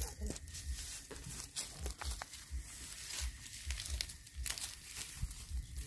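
Dry straw and grass crackling and tearing as a clump is pulled up by hand, with irregular soft low thuds underneath.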